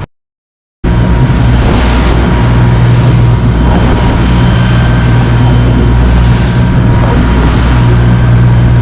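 Boat engine running steadily, a loud low drone heard from on board. It starts abruptly just under a second in, after a moment of silence.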